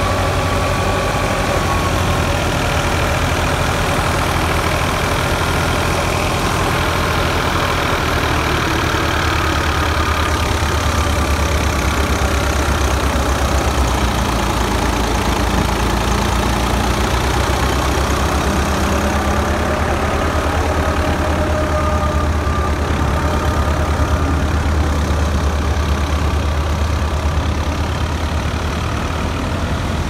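New Holland 480 tractor's diesel engine running steadily under load, driving a wheat thresher through its PTO shaft, with the thresher's drum adding a steady mechanical din and a faint wavering whine.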